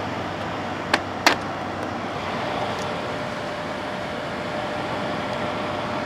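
A 2000 Quasar Cool Look HQ2061FH 6000 BTU window air conditioner running, its fan blowing and compressor on, in a steady even hum with a faint tone; the unit is working properly. Two light clicks come about a second in.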